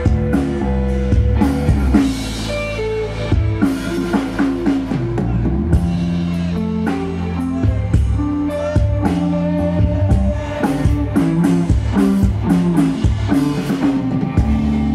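Live rock band playing: electric guitar, bass guitar and drum kit together, with regular drum hits under held guitar notes.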